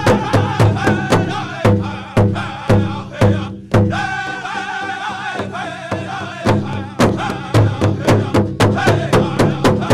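Pow wow drum group playing a prairie chicken dance song: a large drum struck in a fast, even beat under group singing. The beat thins out for a few seconds in the middle while the voices hold long notes, then comes back in.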